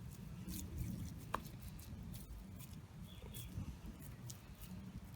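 Hands pressing and squeezing raw beef mince around a kofta skewer: faint soft squishing with scattered small clicks over a low background rumble, and a brief chirp a little over a second in.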